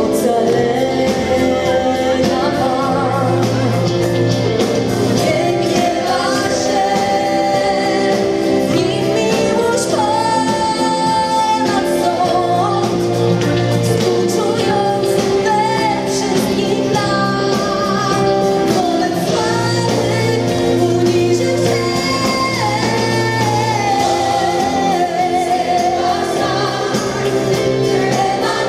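Gospel choir and lead singers performing live with a band: sung melody over held choir harmonies, with bass and guitars underneath.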